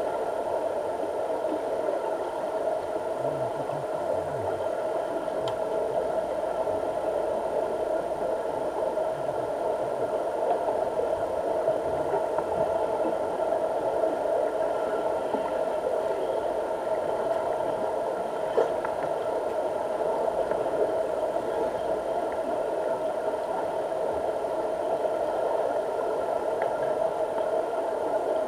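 Steady mechanical hum heard underwater in a diving pool, the kind of hum that pool pumps and circulation machinery carry through the water, with a couple of faint clicks.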